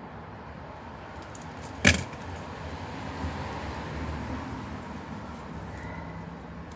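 A single sharp click or knock about two seconds in, over a steady low background hiss.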